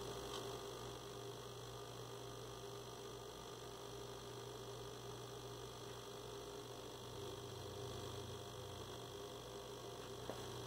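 Steady electrical mains hum with faint steady higher tones, and a faint click near the end.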